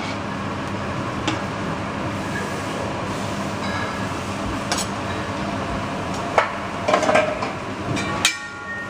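Knife and fork clinking and scraping against a steel teppanyaki griddle as a lemon is cut, a handful of sharp metal clinks over a steady hiss. One clink just after eight seconds in rings briefly.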